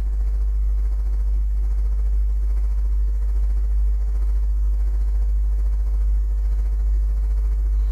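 Steady low electrical hum with a few faint steady overtones above it, unchanging throughout, with no clicks or other events.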